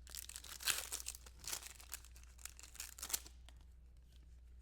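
A 2024 Certified football card pack being torn open and its wrapper crinkled, a run of rustling bursts over the first three seconds, then quieter handling with a few sharp clicks.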